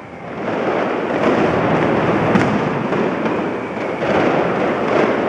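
Firecrackers crackling in a rapid, unbroken stream, starting suddenly just after the start.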